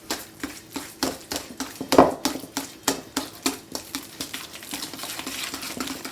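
A utensil stirring thick sweet potato pie filling by hand in a mixing bowl, clicking and scraping against the bowl in quick strokes about three times a second.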